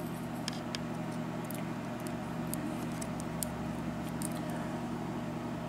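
Scattered faint, light clicks of small lock pins being handled while the mortise cylinder's upper pins are checked, over a steady low electrical hum.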